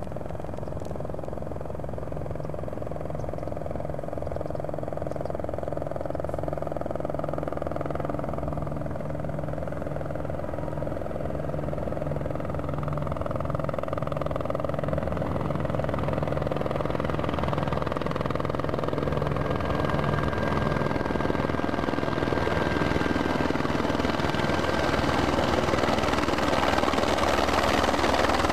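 Aérospatiale AS355F2 Écureuil 2 twin-turbine helicopter coming in on approach to land. The beat of its main rotor and its turbine noise grow steadily louder as it nears.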